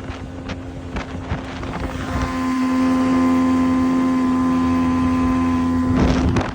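Old 60 hp Mercury oil-injected two-stroke outboard running the boat under way, with wind on the microphone. The engine note grows louder about two seconds in and holds a steady pitch, then breaks off into a short rush of noise near the end.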